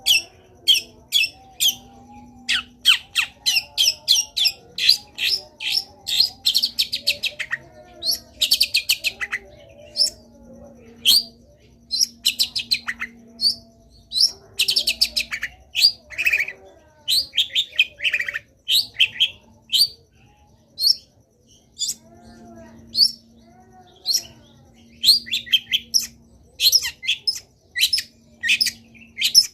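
Long-tailed shrike (cendet) singing: quick runs of short, sharp, high chattering notes, some run together into fast trills, packed with mimicked phrases. Softer, lower warbling carries on underneath.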